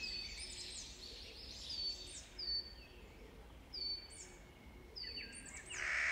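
Field recording of birds: a string of short, high chirps sliding downward in pitch, then near the end a louder, steady, rasping call from a Clark's nutcracker begins.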